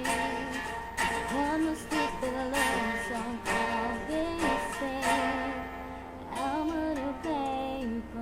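A woman singing over a strummed acoustic guitar, the strums falling about once a second.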